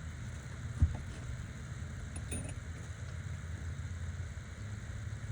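Metal tools knocking and clinking against engine parts: one sharp knock about a second in and a few light clinks a little later, over a steady low hum.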